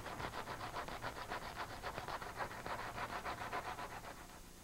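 Hand sanding with finer-grit sandpaper over a rust spot on a car body panel, in quick back-and-forth strokes, about six a second, that stop shortly before the end.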